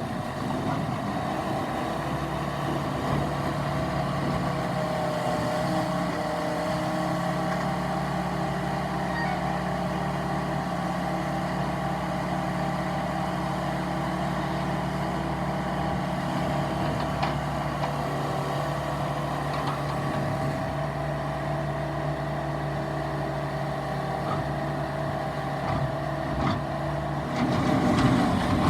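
Case TR320 skid steer's diesel engine running steadily at a constant speed, then louder for a moment near the end.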